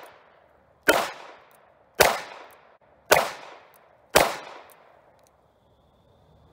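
Smith & Wesson Model 60 J-frame snub-nose revolver firing four shots about a second apart, each a sharp crack followed by a fading echo.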